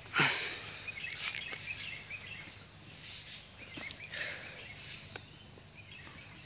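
Steady high-pitched drone of insects such as crickets, with scattered short chirps. A brief loud falling swish comes a fraction of a second in.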